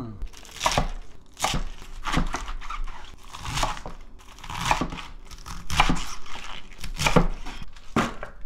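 Kitchen knife slicing crisp young napa cabbage on a wooden cutting board: a series of crunching cuts at an uneven pace, each ending with a knock on the board.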